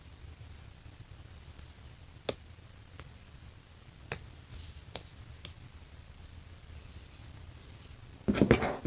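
A handful of sharp, isolated clicks of a plastic phone case being handled, spread a second or so apart, over a faint low hum.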